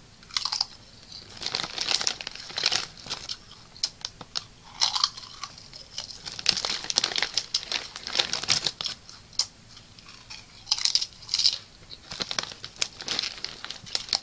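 Plastic snack bags crinkling and rustling as they are handled close to the microphone, in irregular bursts of sharp crackling.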